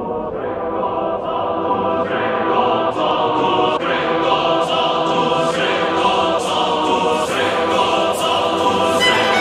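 Background music with sustained chords over a steady beat, slowly building in loudness.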